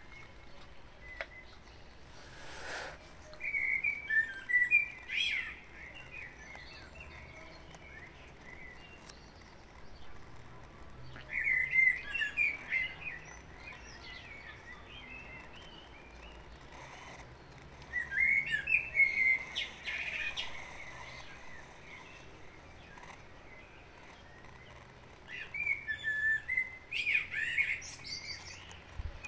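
A songbird singing: four short warbled phrases, each one to three seconds long, coming about every seven seconds.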